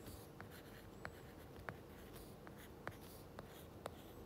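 Stylus tip tapping and sliding on a tablet's glass screen during handwriting: a string of faint, irregular ticks as each stroke touches down.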